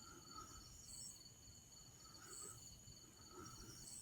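Faint night insects, crickets: a steady fast high trill, with short chirps repeating about once a second.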